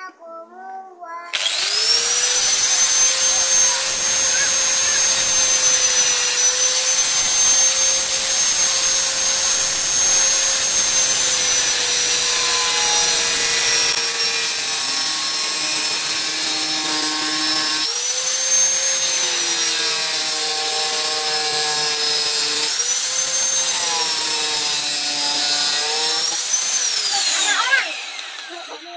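Electric angle grinder starting up about a second in and running at speed with a steady high whine while cutting into a PVC pipe. Its pitch sags several times as the disc bites under load. Near the end it is switched off and winds down, the whine gliding down and fading.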